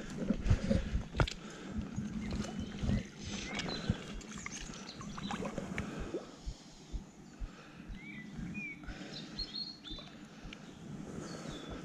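Shallow river water sloshing and splashing close by, with irregular knocks, busiest in the first few seconds. A few short bird chirps come about eight seconds in.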